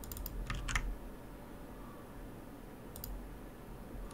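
Computer keyboard keystrokes: a few quick taps in the first second, then a single tap about three seconds in, as a number is typed into a form field.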